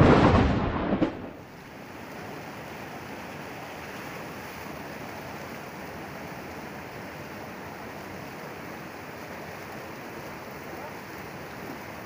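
A loud, thunder-like logo sound effect dies away about a second in. It gives way to the steady rush of a swollen, muddy river running high after rain.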